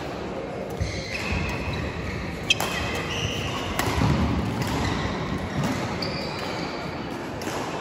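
Sneaker squeaks on a hard court floor and dull thuds of play, with one sharp hit about two and a half seconds in.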